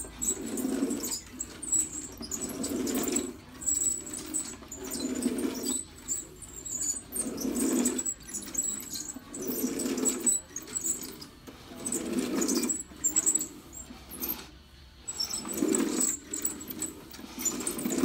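Wooden-bodied Bissell manual carpet sweeper pushed back and forth over carpet, its brush roll whirring against the pile with each stroke, about one stroke every two seconds.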